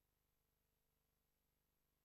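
Near silence: only a faint, steady electrical hum and hiss.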